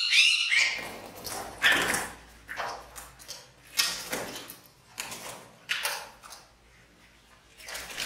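A run of short, irregular rustling scuffles, roughly one a second, as cats bat and claw at a cloth window curtain where a trapped small bird is fluttering.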